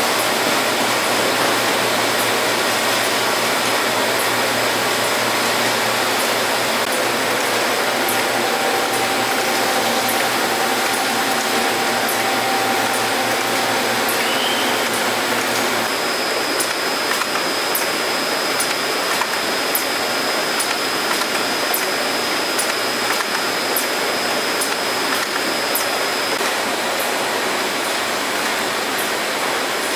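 Automated pallet conveyor and walking-beam assembly machine running steadily: an even mechanical whirring hiss with a faint high steady tone. From about halfway, light ticks come at an even pace of a little over one a second.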